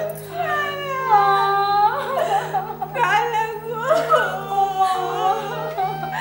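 People crying and wailing in grief, their voices sliding up and down and breaking, over sad background music with a steady low held note.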